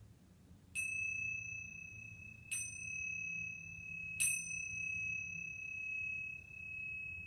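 Small hand cymbals (tingsha) struck together three times, about a second and a half apart. Each strike leaves a long, clear, high ring that runs into the next, rung to close the yoga practice.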